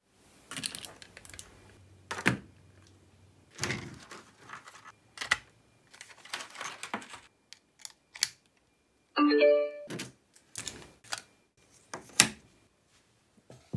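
Hard plastic clicking and clacking as a portable cassette player, its aux cable and a cassette shell are handled and fitted together, with a sharp snap about 12 seconds in. About 9 seconds in, a short chime-like tone of a few notes sounds for under a second.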